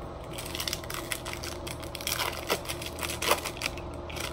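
Foil wrapper of a Topps Chrome trading-card pack crinkling as it is opened, a dense run of sharp crackles with the loudest snap about three seconds in.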